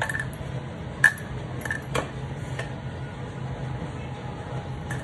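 Stainless steel mixing bowl clinking and knocking as dough is kneaded in it by hand: four ringing clinks in the first half, the loudest a little after a second in, then only a steady low hum.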